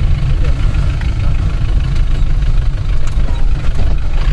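Steady low rumble of engine and road noise from inside the cabin of a moving Tempo Traveller van.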